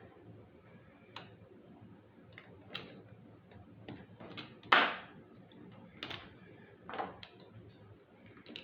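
Plastic Yangchuanosaurus action figure being bent and posed by hand: scattered clicks and knocks, the loudest about five seconds in.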